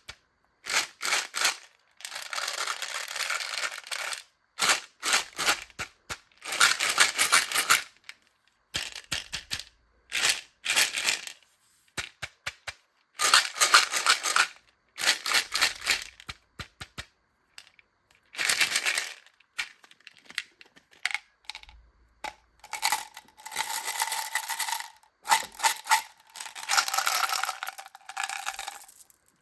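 Tiny micro beads pouring and cascading in short bursts of crisp, dense rattling, broken by brief silences, with a few single sharp clicks of beads landing around the middle.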